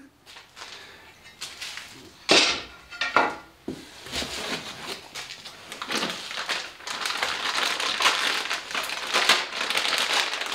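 Plastic packing bag crinkling and rustling as bagged bandsaw parts are handled and lifted out of the shipping box. The crinkling is dense and continuous through the second half, after two louder scrapes about two and three seconds in.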